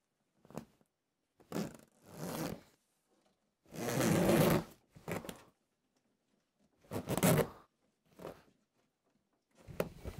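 Zipper along the seam of an IsoVox 2 portable vocal booth's fabric-covered foam panels, pulled in about eight short, halting tugs with quiet gaps between them; the longest comes about four seconds in. The zipper is stiff and catches on the acoustic padding on first assembly.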